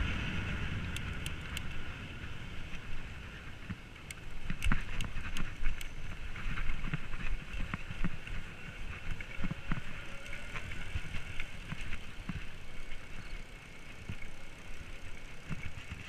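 29er electric mountain bike with a Bafang BBS-02 mid-drive rolling at low speed: steady tyre noise with light wind on the microphone, and a scattered run of knocks and rattles, thickest a few seconds in, as it rides over bumpy ground.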